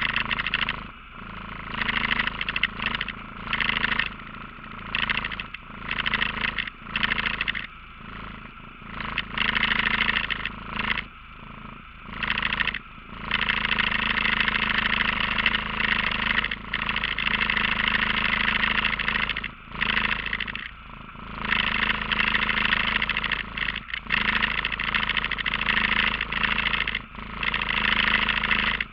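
ATV engine idling steadily, with loud bursts of hissy noise coming and going every second or two over it.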